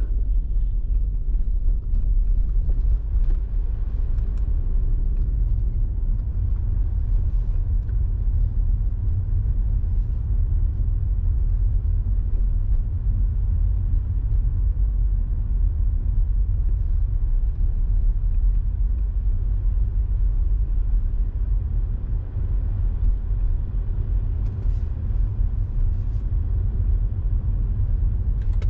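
Steady low rumble of a car driving along city streets: engine and tyre noise, with no change in pace.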